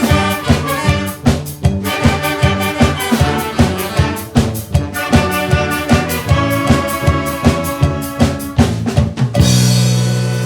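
Upbeat brass-band music over a drum kit, ending on a held final chord a little over nine seconds in that slowly fades.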